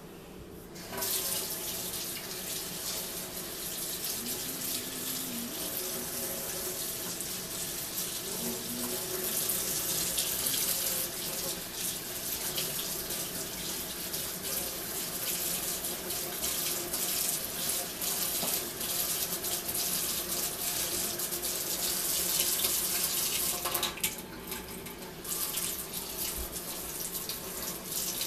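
Kitchen faucet running, its water splashing into the sink and over wet hair as conditioner is rinsed out. It starts about a second in and drops away briefly near the end.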